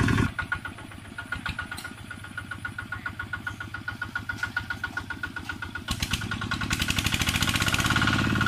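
Single-cylinder diesel engine of a two-wheel walking tractor chugging with a steady, even beat. It is fainter at first and grows louder after about six seconds as the tractor comes closer.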